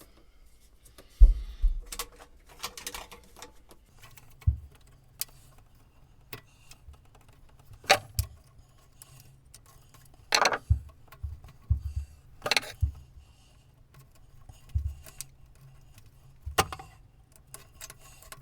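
Irregular clicks, knocks and rattles of a sump pump and its plastic pipe fittings being handled and adjusted in the pit, with a handful of louder knocks spread through it.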